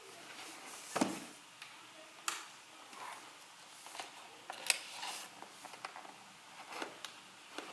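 Cardboard box and packaging of a keyboard being handled and opened: scattered taps, knocks and rustling, the sharpest knock about a second in.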